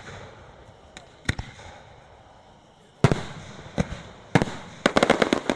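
Fireworks shells bursting: a single bang about a second in, a loud boom about three seconds in followed by two more, then a quick string of crackling reports near the end.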